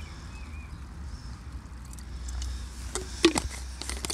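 Wind rumbling on the microphone, with a few faint bird chirps early on. About three seconds in comes a quick run of sharp clicks and knocks, the loudest near the middle of the run, as the plastic water bottle and camping gear are handled and set down.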